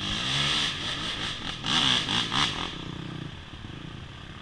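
Off-road motorcycle engine revving up and down under the throttle, with a loud rushing noise over it. It settles to a steadier, quieter run after about two and a half seconds.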